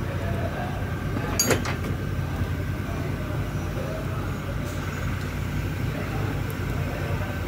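Steady low mechanical rumble with a faint steady high whine over it, and one sharp knock about a second and a half in.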